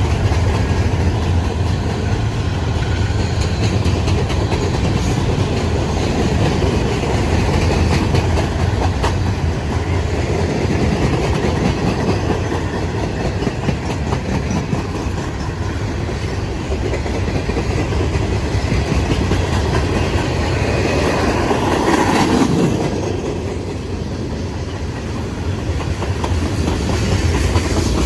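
CSX freight train cars rolling past with wheels clicking over the rail joints, a steady loud rumble. About 22 seconds in it swells briefly louder, then eases off before building again near the end.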